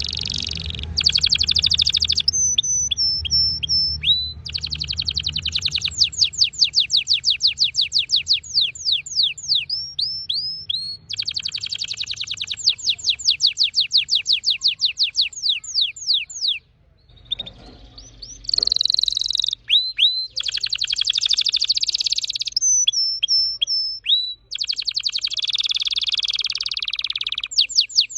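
Red factor canary singing a long, fast song of rapid trills and rolls of quickly repeated sweeping notes, broken by a few short whistled notes. There is one brief pause about two-thirds of the way through.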